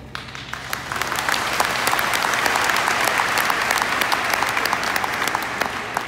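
Audience applauding: the clapping starts at once, builds to full within about two seconds, and tapers off near the end.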